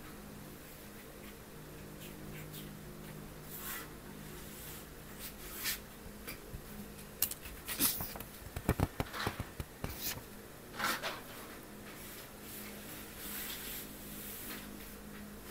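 Paper pages of a small hardback book being handled and turned: a cluster of rustles and crinkles in the middle, with scattered softer paper rustles before and after, over a faint steady low hum.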